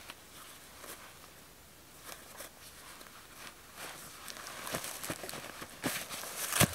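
Faint rustle of bootlaces being pulled tight, then dry fallen leaves crunching and crackling under hiking boots as the walker shifts his feet, the crunches growing denser over the last couple of seconds, the loudest just before the end.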